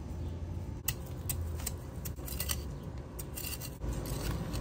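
Small metal hand trowel digging and scraping into loose garden soil: a string of short, uneven gritty scrapes, over a steady low rumble.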